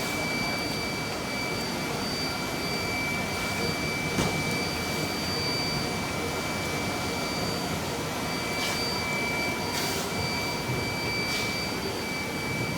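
Steady factory machinery noise from a rubber strip extrusion and microwave vulcanization line running, with a constant high whine and a few short hissing bursts.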